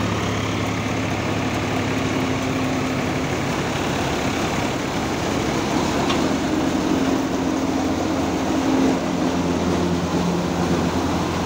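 Swaraj 744 XT tractor's three-cylinder diesel engine running steadily under load, driving a threshing machine through its PTO, with the thresher running alongside as a continuous mechanical din.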